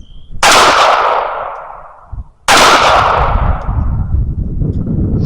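Two pistol shots about two seconds apart from a Rock Island Armory 1911 in .380 ACP firing subsonic PMC 90-grain FMJ rounds, each with a long fading echo.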